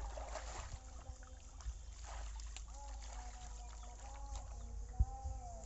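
Shallow water sloshing and splashing around a man's legs as he wades with a dripping cast net, over a low wind rumble on the microphone. Faint drawn-out pitched calls sound in the background from about halfway through, and there is a single thump near the end.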